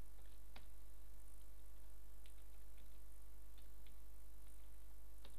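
Computer keyboard keys clicking a few scattered times as code is typed, over a steady low hum.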